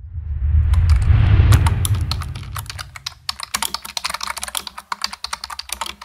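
Rapid keyboard-typing clicks, a sound effect for on-screen text being typed out, over a low rumble that swells and fades in the first three seconds.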